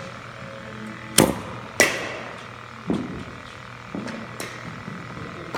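Batting-cage hitting practice: two sharp, echoing cracks about half a second apart, as a ball is struck by a bat, followed by a few softer thumps of balls.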